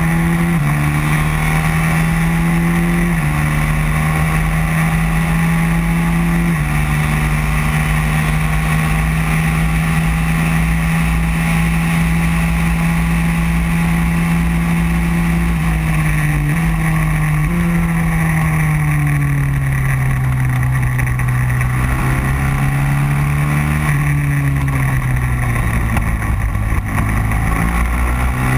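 Racing kart engine at high revs, heard onboard, holding a steady high pitch down a long straight. Later the revs fall and rise again several times as the kart slows for corners and accelerates out.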